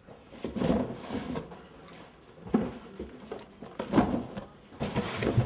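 Empty cardboard boxes being handled and set down: irregular knocks, scrapes and rustles of cardboard, with a sharper knock about four seconds in.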